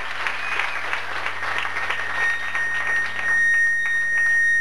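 Small-club audience applauding after a song ends. A steady high whine of amplifier feedback comes in about halfway and grows louder before cutting off at the end.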